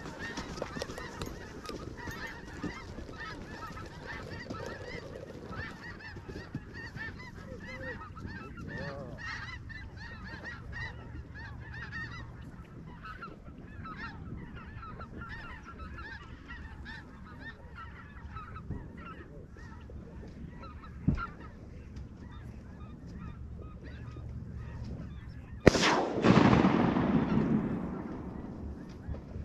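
A flock of geese honking overhead, many overlapping calls that thin out after about twelve seconds. Near the end a single loud shotgun shot rings out, with a rushing tail that fades over a couple of seconds.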